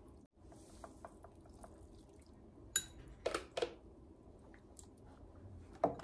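Cooked somen noodles being laid into ice water in a wooden tub: faint drips and small splashes, with a few sharp clinks of ice and chopsticks, three near the middle and one just before the end.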